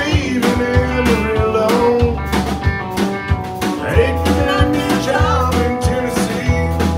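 Live country band: a man singing over a strummed acoustic guitar, with a bass line and drums keeping a steady beat.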